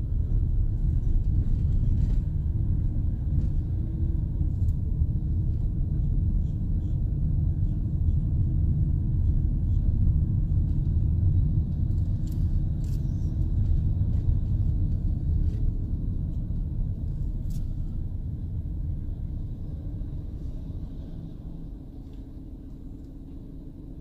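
Road and engine rumble of a moving RV van, heard from inside the cab: a steady low drone that grows quieter over the last several seconds.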